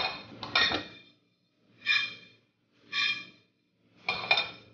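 Dry pumpkin seeds scraping and sliding across a frying pan as they are moved around during roasting, a rasping swish about once a second.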